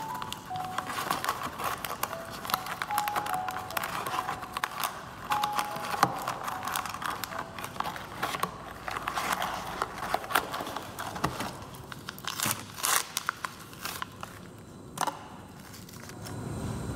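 Paper tea-bag sachets and a cardboard tea box being handled: irregular rustling and crinkling with many small clicks and taps.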